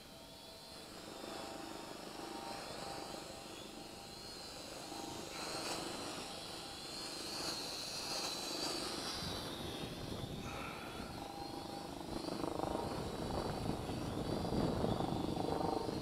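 Holy Stone HS110D toy quadcopter's motors and propellers whining as it struggles to hold a hover in strong wind, the pitch wavering up and down. A low wind rumble on the microphone builds, and the whole grows louder toward the end.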